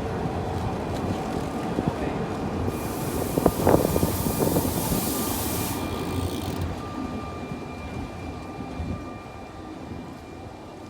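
Train running on rails: a steady rumble with a few clunks of the wheels about three and a half seconds in, a hiss lasting about four seconds, and a thin steady whine. The rumble fades toward the end.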